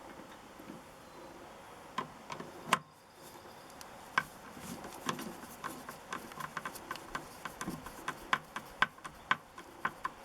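Light metallic clicks and knocks from bolts being tightened down through the box into the motorcycle's rear rack: a few at first, then an irregular run of ticks about two a second through the second half.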